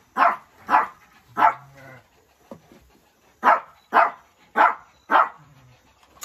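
A dog barking: three short barks, a pause of about two seconds, then four more about half a second apart.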